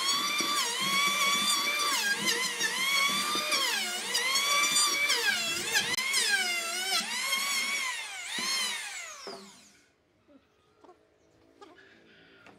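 Electric hand planer running as it shaves the surface of a dry log, its high whine dipping in pitch each time the blades bite into the wood and recovering between passes. About three-quarters of the way through it is switched off and winds down, leaving only faint knocks.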